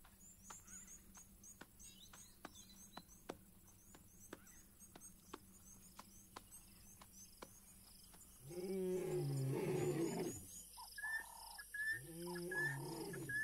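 Lion roaring: a deep, downward-bending call about eight seconds in and another near the end, loud against a faint background of regular ticking.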